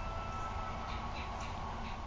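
Quiet background ambience: a steady low rumble with a faint hiss and no distinct event.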